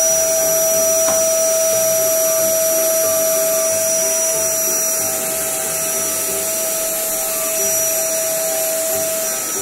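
Corded electric vacuum cleaner running steadily as it sucks up scraps of paper from the floor, a constant motor whine with an even rushing of air.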